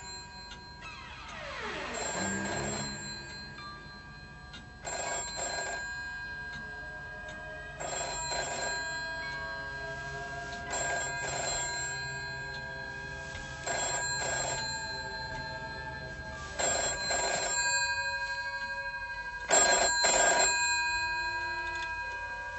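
Telephone ringing seven times, each ring just under a second long and about three seconds apart, getting louder, with the last ring the loudest.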